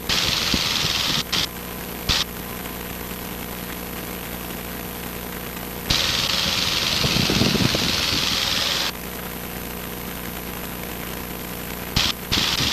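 Cessna 150's four-cylinder piston engine running steadily in flight. Bursts of hiss switch sharply on and off over it several times; the longest lasts about three seconds, starting near the middle.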